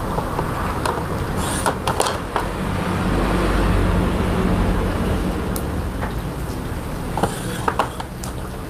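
Knife slicing through plastic-wrapped blocks of tempe on a wooden board, giving a few sharp crackles and taps about two seconds in and again near the end. Under it, a steady rumble of road traffic that swells in the middle.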